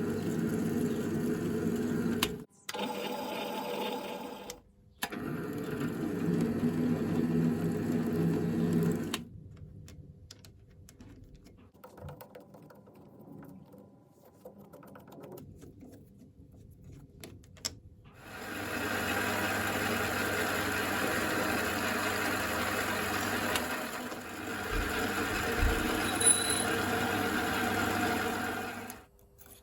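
Small bench-top lathe running in several stretches, stopping and starting a few times, with a quieter gap of several seconds in the middle.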